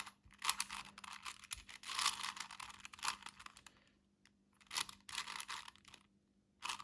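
Plastic 4x4 Rubik's cube turned quickly by hand: runs of clicking and clattering as the layers snap round, with a short pause a little past halfway and another near the end.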